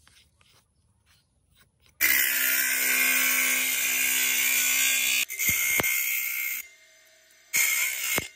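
A bench motor's spinning abrasive disc cutting and grinding into a plate of animal horn: a loud grinding with a steady motor hum under it. It starts suddenly about two seconds in, breaks off briefly twice, eases off a little after six seconds, and bites again shortly before the end. Before it come only faint scratches of chalk marking out the horn.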